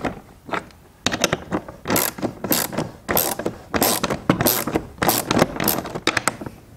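Craftsman hand ratchet clicking as it turns the screws that hold a fog light into a plastic bumper cover. Mostly quiet for about the first second, then short runs of clicks about twice a second with each back-and-forth stroke.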